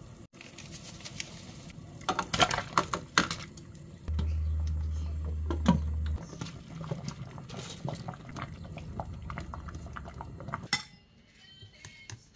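Stovetop cooking sounds at a steel soup pot: sharp knocks and clinks of metal and a glass pot lid, a steady low hum for about two seconds in the middle, and liquid bubbling. Near the end it turns quieter, with a few faint clinks of a bowl.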